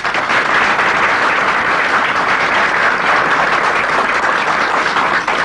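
Audience applauding: a roomful of people clapping steadily, starting at once and holding even throughout.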